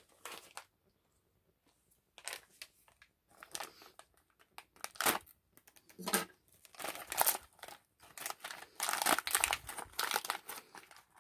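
Foil cookie pouch crinkling and being torn open by hand, in irregular bursts of crackle after a short pause near the start.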